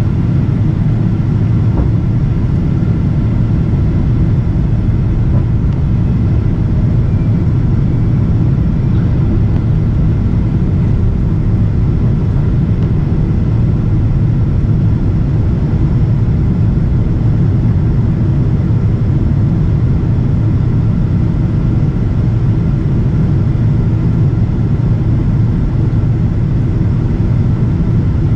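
Steady low rumble of a Boeing 777-200ER in flight, heard inside the passenger cabin: engine and airflow noise, with a few faint steady whines above it.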